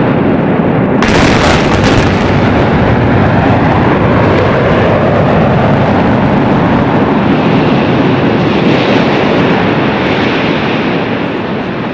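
Explosive demolition of a gas storage tower: a sharp crack of charges about a second in, then a loud, continuous rumble as the tower collapses, easing slightly near the end.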